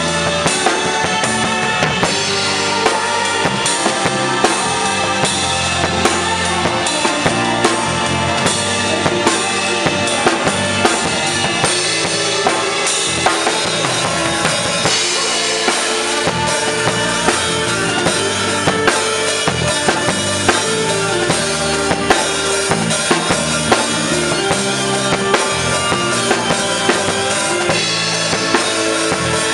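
Drum kit played live in a steady rhythm, with kick, snare and cymbals heard close up from just behind the kit. An orchestra and band play along.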